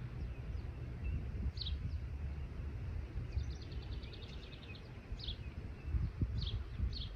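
Wild birds calling: short chirps every second or two, and a quick trill of about a dozen notes near the middle, over a steady low rumble.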